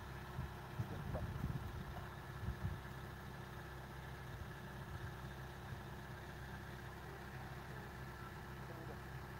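Small excavator's diesel engine running steadily at a distance, with a few low thumps in the first three seconds.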